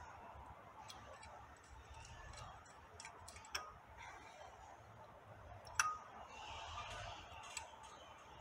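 Sparse light metallic clicks and clinks of pulley bolts being started by hand in a water pump pulley. There are a few single ticks, and the sharpest is a short ringing clink near six seconds in.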